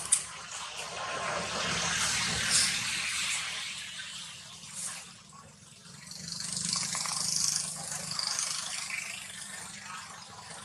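Dry leaves rustling and crackling as monkeys move over leaf litter, in two longer stretches with a few sharp crackles at the start.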